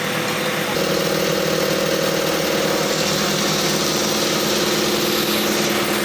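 Crane truck's engine running steadily while it lifts a precast concrete block on its hook; the engine note steps up slightly just under a second in.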